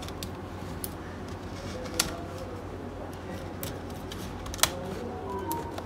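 Scattered sharp clicks and ticks of a plastic playing card being worked into the edge of a Samsung Galaxy Tab S6's display, prying it away from its adhesive strips. The two loudest clicks come about 2 s and 4.5 s in, over a steady low hum.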